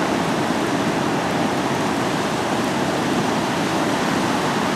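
Steady rush of water pouring through the dam below, an even noise without breaks.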